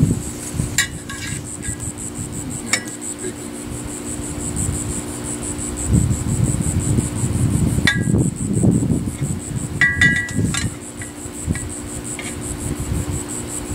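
Metal knife and fork clinking and scraping against an enamel roasting pan and plates as cooked meat is cut, in a few sharp clinks about a second in, around three and eight seconds, and a quick cluster near ten seconds. A steady, high insect buzz runs underneath.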